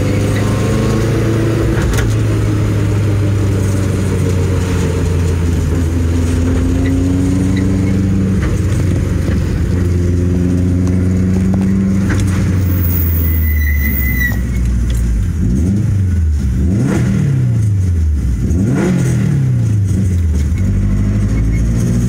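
Subaru Impreza GC8 being driven, its engine running at a steady pitch, then falling and rising several times in the second half as revs change. The car makes a light tinkling "chiri-chiri" noise in normal driving that appeared after a wheel hub replacement.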